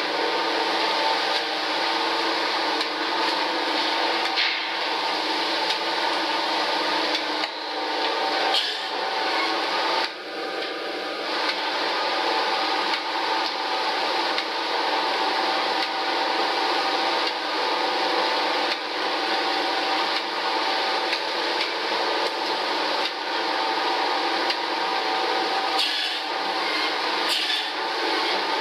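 Fish-processing line running: a steady, dense mechanical noise from conveyors and processing machinery.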